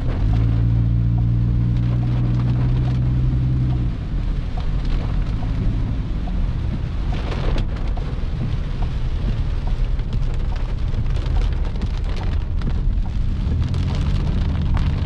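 Heavy rain falling and pattering on surfaces, with a steady low hum underneath during the first four seconds.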